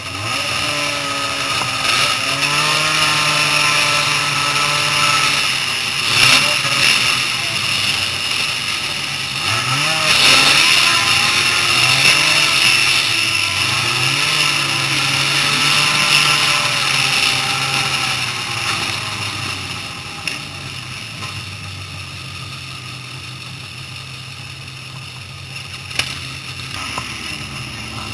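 Snowmobile engine running at low speed, its revs rising and falling in several swells, with a steady hiss over it. It settles quieter in the last third.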